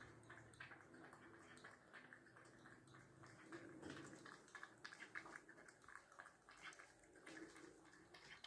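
Sphynx cat lapping milk from a bowl: faint, rapid wet ticks of its tongue.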